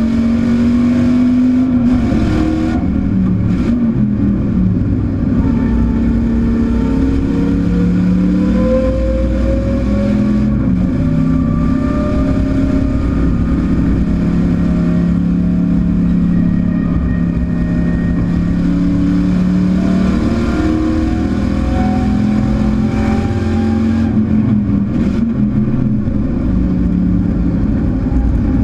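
Chevrolet Camaro race car's V8 engine heard from inside the stripped cockpit under hard driving, its pitch climbing again and again with acceleration and breaking off at gearshifts and lifts, with a long stretch at steady pitch about halfway through.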